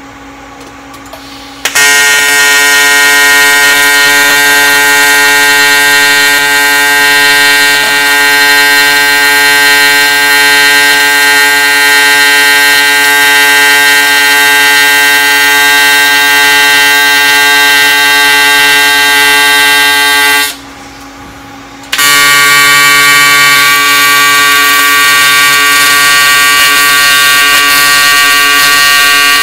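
AC TIG welding arc on aluminium, a loud steady buzz, laying stitch welds on an aluminium tank. The arc strikes about two seconds in, breaks off for a second or two around twenty seconds in, then is struck again.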